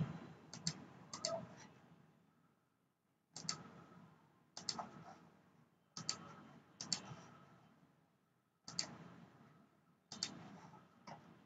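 Faint computer mouse clicks, single and in quick pairs, a dozen or so spread out with pauses between them, made while placing points in CAD software.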